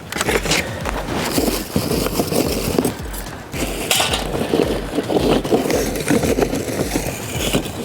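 Pieces of charcoal rattling, clinking and scraping as they are poured and handled.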